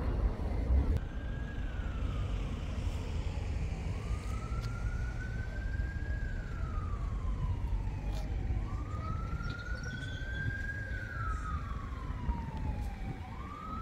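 A siren wailing slowly, its pitch climbing and then sinking about every four and a half seconds, starting about a second in, over a steady low rumble.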